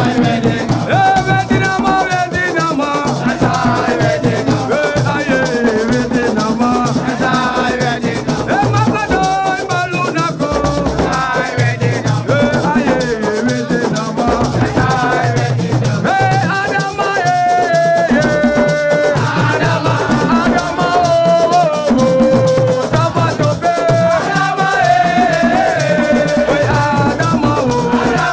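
Music with singing over a steady shaker rattle and drums.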